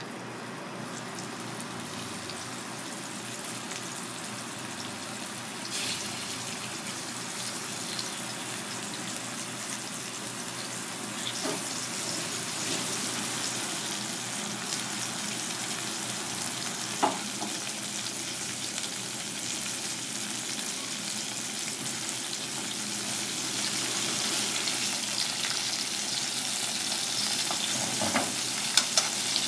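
Food frying in hot oil: a steady sizzle that grows gradually louder, with a few sharp clicks.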